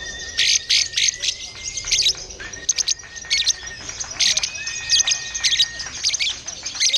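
Several songbirds chirping and singing at once: rapid, sharp chirps and trills, with a few long, steady whistled notes held for a second or two.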